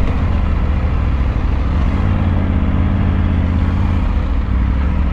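2022 Triumph Tiger 900 Rally Pro's 888 cc three-cylinder engine running on the move under a heavy low rumble; its pitch rises slightly about two seconds in and drops away after about four seconds.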